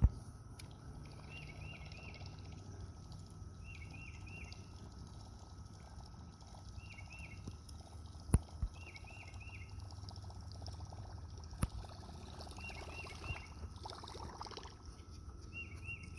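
A bird calling over and over, each call a quick group of about three wavering notes, repeated every two to three seconds over a low outdoor rumble, with a few sharp clicks in between.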